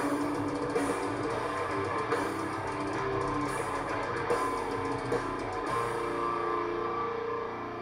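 Rock music with guitar and drums, starting to fade near the end.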